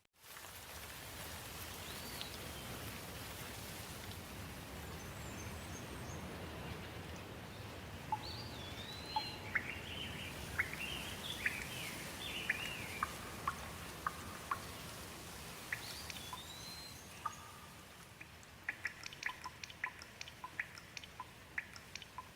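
Steady rain hiss with songbirds calling over it: a few swooping whistled notes and a run of quick chirps in the middle. Near the end comes a quick scatter of sharp ticks.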